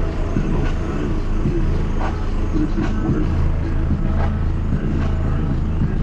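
Two American Bass XMAX 12-inch subwoofers in a car's trunk playing a rap track at high volume, heard from outside the car: a heavy, steady bass with a muffled beat and vocal on top.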